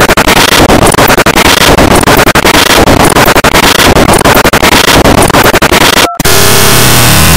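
Harsh noise music: a loud wall of distorted noise filling the whole range, stuttering with rapid dropouts. About six seconds in it cuts out for an instant, then a steadier wall of noise with a low drone begins.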